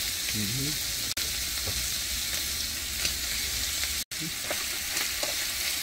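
Shrimp and sliced garlic frying in butter in a small nonstick pan on a portable gas burner, a steady sizzle that drops out for an instant about four seconds in.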